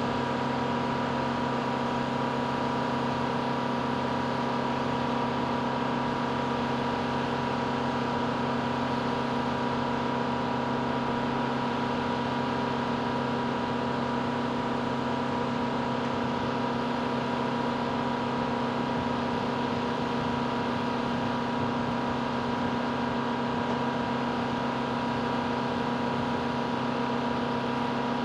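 Steady engine noise at constant speed: a low hum and a high whine held at one pitch over a rushing noise, with no change in speed or load.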